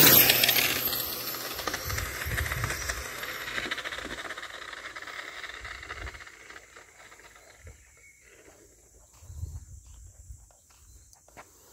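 HoBao VTE 1/8 on-road RC car on a 4S battery passing close at full speed: a loud rushing whine of its electric motor and tyres right at the start, fading steadily over about six seconds as the car runs off down the road.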